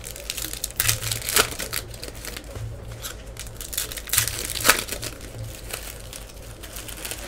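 Foil trading-card pack wrappers crinkling and being torn open by hand, irregular crackles with sharper rips now and then, the loudest about one and a half seconds in and again around four and a half seconds in.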